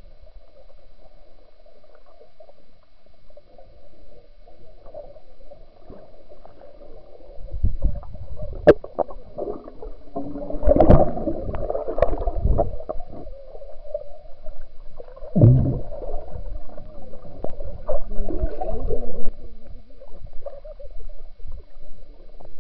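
Swimming-pool water heard from a microphone held underwater: a muffled gurgling and bubbling. Dull thumps and rushes of bubbles from swimmers moving around it come from about eight seconds in.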